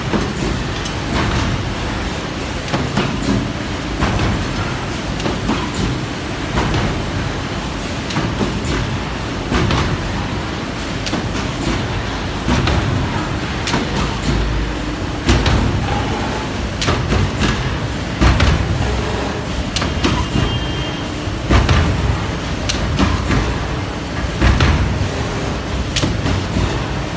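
Waste stripping machine and other print-finishing machinery running: a steady mechanical din with frequent sharp clicks and knocks, and heavier low thumps in the second half.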